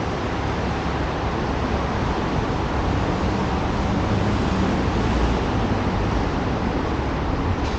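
Steady rush of wind on the microphone mixed with city traffic noise while riding a bicycle, with a low rumble underneath.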